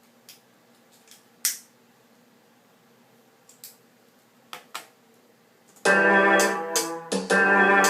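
A few scattered clicks, then from about six seconds in an electronic keyboard plays loud sustained chords, breaking off briefly once before the next chord.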